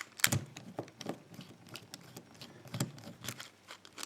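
Scattered light metal clicks and taps from a heavy steel padlock being handled as its retaining screw is undone and the lock is opened up. A cluster of clicks right at the start, then softer taps, with more clicks about three seconds in.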